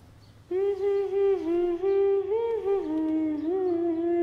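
A woman humming a slow, wordless melody ("hum hum hum") with held, gliding notes. It starts about half a second in.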